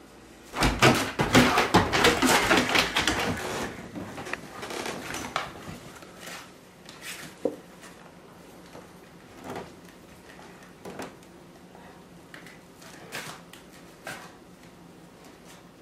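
A dog tearing and chewing a cardboard box: a loud run of ripping and crackling for about three seconds near the start, then scattered softer crinkles and knocks.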